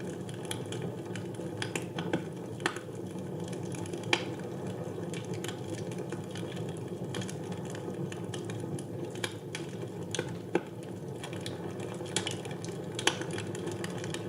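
Wood fire burning in a fireplace: a steady low rush of flames with irregular crackles and sharp pops of burning logs, a few louder snaps among them.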